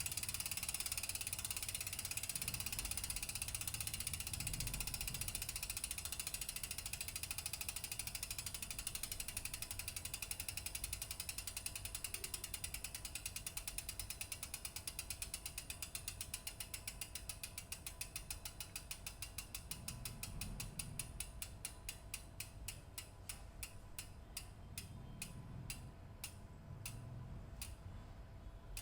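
Shimano FH-MT401 rear freehub ratcheting as the wheel spins freely: the pawl clicks start as a fast buzz and slow down steadily until they are separate clicks near the end as the wheel coasts to a stop.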